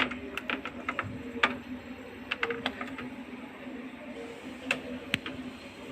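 Scattered light clicks and taps as small items and plastic parts in a refrigerator's compartments are handled, over a low steady hum.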